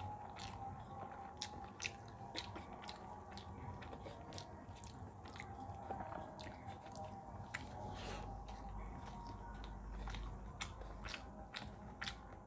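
Close-miked eating sounds of a person chewing mouthfuls of rice and potato curry eaten by hand: wet smacks and clicks of lips and tongue, several a second, in an irregular run.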